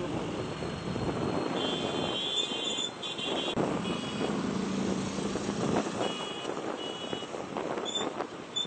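Vehicle engines running amid outdoor noise, with short, high electronic beeps sounding several times.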